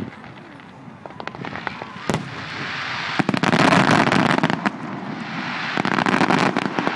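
Fireworks display: a few sharp bangs of bursting shells, then two stretches of dense crackling, one about halfway through and one near the end.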